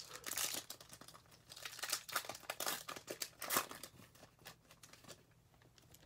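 Foil wrapper of a Bowman Mega Box trading card pack being torn open and crinkled in the hands, irregular crackling rustles that die down about four and a half seconds in, leaving a few faint ticks.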